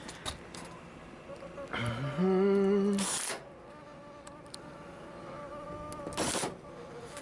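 Cordless drill with a driver bit working a sheet-metal screw in an HVAC unit's panel: the motor spins up with a rising whine about two seconds in and runs steadily for about a second, then a short harsh burst follows; another short harsh burst comes near the end.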